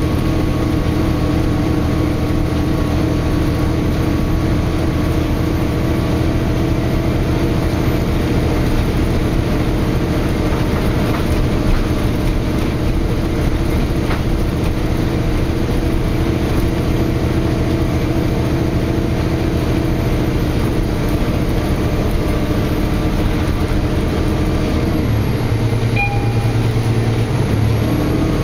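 NovaBus LFX transit bus with its Cummins ISL9 diesel engine running steadily under way, heard from inside the passenger cabin along with road noise. The engine note changes for a few seconds near the end, and a brief high beep sounds.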